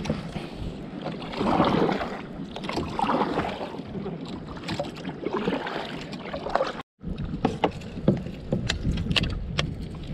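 Kayak paddle strokes swishing through the water in swells a couple of seconds apart. The sound cuts out for a moment about seven seconds in, then a run of sharp clicks and knocks follows.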